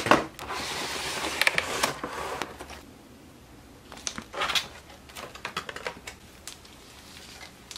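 Clear plastic packaging being slid out of a cardboard box and handled, an HO scale model railcar's tray and wrap. A continuous rustling scrape fills the first couple of seconds, then scattered light plastic clicks and crinkles follow.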